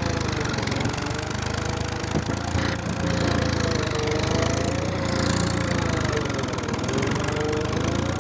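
Tractor engine running steadily while ploughing, with a tone that slowly wavers up and down in pitch and a few sharp knocks in the first three seconds.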